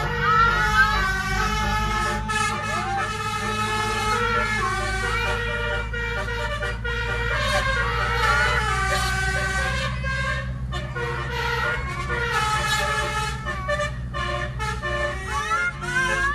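Basuri telolet air horn playing a melody, note after note with a few sliding notes, over a steady low hum.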